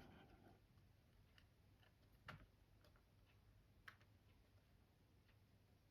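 Near silence: faint room tone with a few light, scattered clicks, the two clearest a little after two seconds and about four seconds in.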